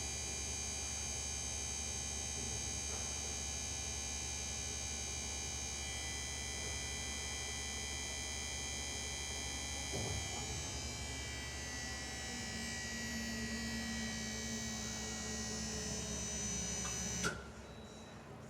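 Leveling jack motor running with a steady electric whine and hum. There is a knock about halfway and the pitch shifts a little after it. It cuts off with a click near the end. This is the noise the jacks are making that the owner finds wrong.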